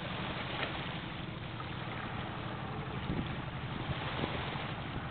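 Steady low drone of a passing tug's diesel engine pushing a barge, with wind noise on the microphone over it.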